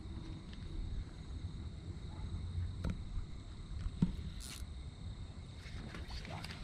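Water sloshing at the surface as a hooked eel is drawn in on a fishing line, over a steady low rumble, with a few small knocks and a short splash about four and a half seconds in.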